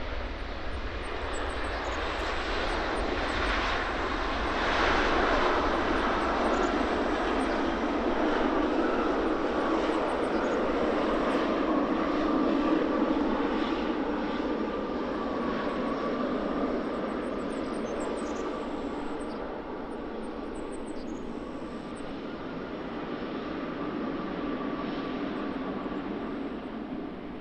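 Jet airliner passing close on arrival: engine noise swells over the first few seconds, stays loud through the middle, then eases off, with a steady whine running through it.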